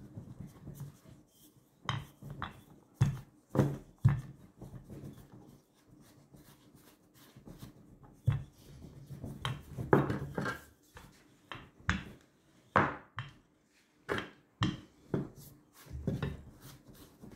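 Wooden rolling pin rolling out puff pastry dough on a wooden board: irregular knocks of the pin against the board, with rubbing and pressing of the dough between them.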